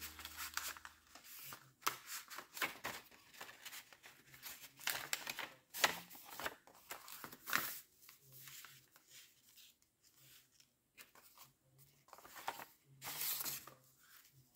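Paper rustling and sliding in irregular bursts as folded origami paper pieces and a card are handled and moved about on a cutting mat, with the loudest bursts around the middle and near the end. Background music ends within the first second.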